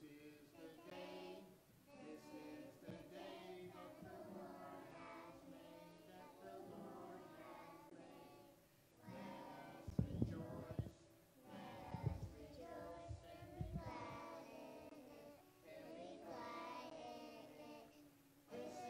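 Young children singing a song together, with acoustic guitar accompaniment. A few low thuds sound around the middle.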